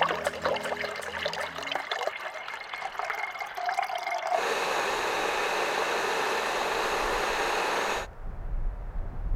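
Water poured from a bottle into a camping stove's cooking cup, the pitch rising as the cup fills, followed by a steady hiss of about four seconds that cuts off suddenly. Low wind rumble on the microphone follows near the end.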